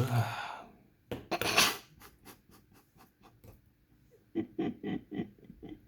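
Small clicks and scrapes of tweezers and pins working on a lock cylinder's pin chambers, a run of short ticks at about three to four a second, with a short rushing noise about a second in.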